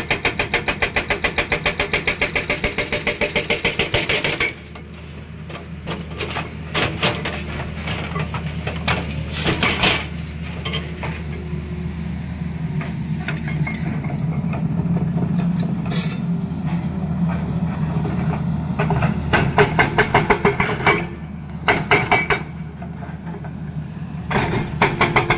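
Tata Hitachi excavator's hydraulic rock breaker hammering rock at about ten blows a second, stopping about four seconds in, over the excavator's steady diesel engine. The engine runs on with occasional knocks, and the breaker starts again in short runs near the end.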